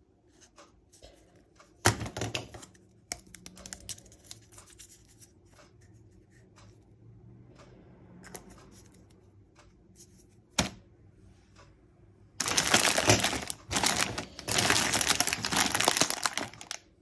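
Rustling and crinkling handling noise with scattered small clicks and taps. A short burst comes about two seconds in, and a longer, louder stretch of crinkling starts about twelve seconds in.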